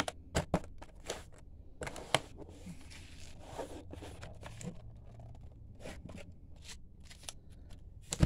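Stacked foil packs of baseball trading cards and cardboard being handled and shuffled on a tabletop: scattered rustles and sharp clicks, the sharpest about half a second in and about two seconds in.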